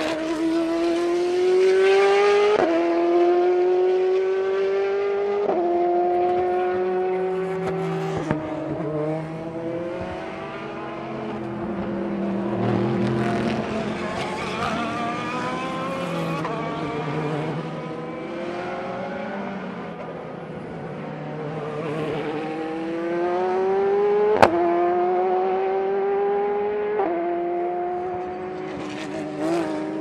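Race cars accelerating hard past and away at full throttle, one after another, each engine note climbing and then dropping back with every upshift. A sharp crack comes at one upshift about three quarters of the way through.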